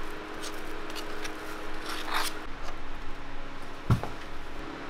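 Metal spatula scraping and spreading whipped cream across a waffle, in short rubbing strokes, with a single sharp knock about four seconds in, over a steady electrical hum.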